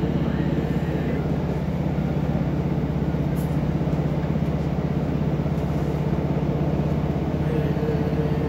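Diesel passenger train running at speed, heard from inside the carriage: a steady low drone and rumble.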